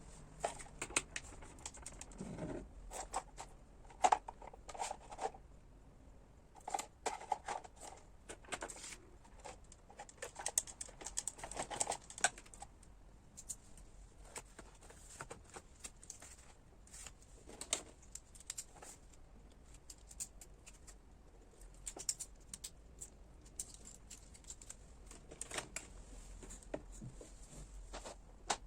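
Scattered small clicks, taps and brief rustles of objects being handled and set down.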